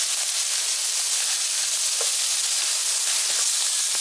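Sliced vegetables (carrot, onion, chili and tomato) sizzling in hot oil in a wok: a steady hiss.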